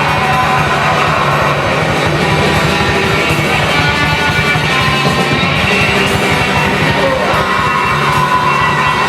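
Heavy metal song: dense distorted band sound over fast, driving drums, steady and loud throughout.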